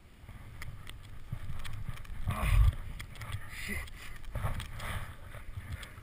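Skis running through deep powder snow, with snow spraying over the helmet camera and wind rumbling on the microphone; it comes in surges, loudest about two and a half seconds in.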